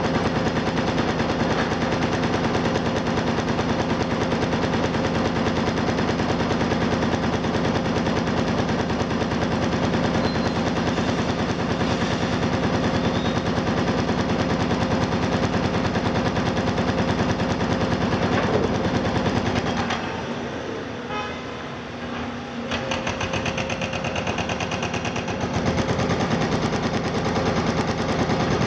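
Heavy demolition excavators running: a steady diesel engine hum with a fast, even mechanical rattle over it. The sound drops briefly about twenty seconds in, then picks up again.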